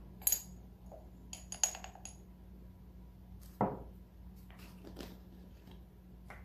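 Metal measuring spoon clinking against small glass spice jars and a glass bowl: a sharp ringing clink, then a quick run of clinks, then a duller knock a little past halfway, with lighter taps after.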